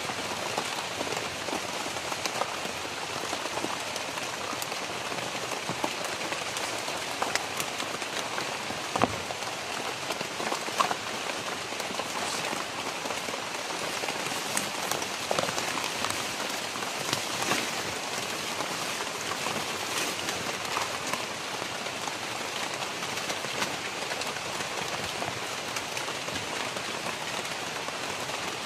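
Steady rain falling on dense broad-leaved vegetation, an even hiss dotted with sharp drop ticks, a few of them louder.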